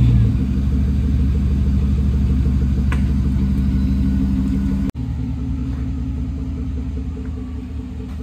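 GMC pickup's engine idling with a steady low hum, cut off for a moment about five seconds in.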